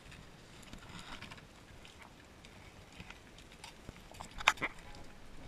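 Faint underwater crackle and hiss heard from beneath the surface, broken by a few sharp clicks and knocks. A pair of louder knocks comes about four and a half seconds in.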